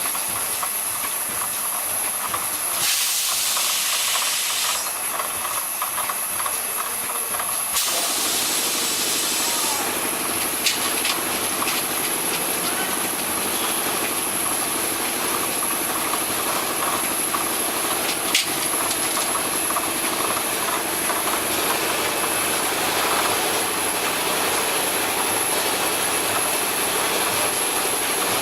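Vial tray washing machine running with a steady mechanical noise and a thin high whine, with two bursts of hissing jets about three and eight seconds in and a couple of sharp clicks later on.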